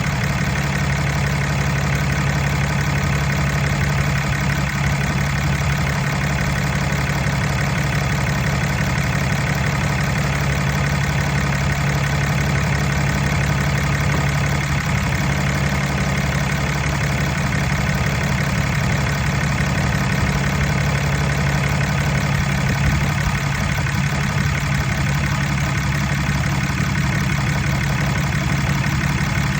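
2015 Ram 3500 engine idling steadily, running the air conditioning while its refrigerant is being recharged.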